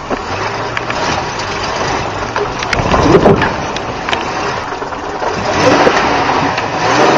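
Nissan pickup truck engine pulling in low gear as the truck crawls over rocks, with tyres crunching on stone and scattered knocks and clatter from the truck. The engine note swells louder about three seconds in and again near the end.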